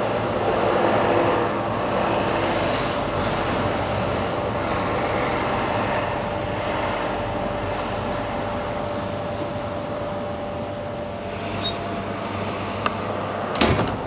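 A cup-noodle vending machine's nozzle pours hot water through a hole in the lid of a Cup Noodle, making a steady pouring noise over the machine's running hum. A sharp knock comes near the end.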